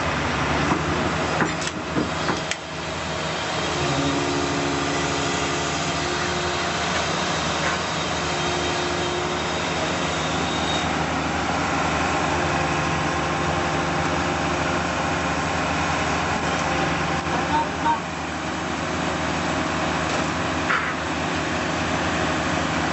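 Heavy machine's engine running steadily, with a few short knocks along the way.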